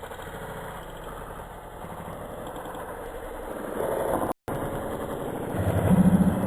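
An engine idling, growing louder in the last second or so. The sound cuts out completely for an instant a little past the middle.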